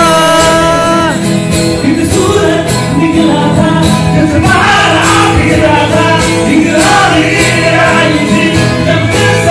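Man singing a melody with an acoustic guitar strummed alongside, opening on a long held note.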